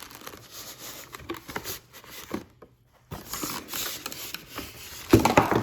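Packaging being handled during an unboxing: irregular rustling and crinkling with small clicks, a brief pause about halfway, then a louder clatter near the end.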